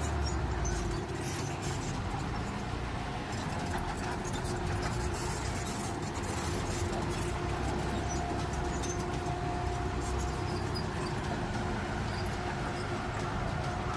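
Heavy earthmoving machine, bulldozer or excavator, with its engine running steadily and a constant droning hum.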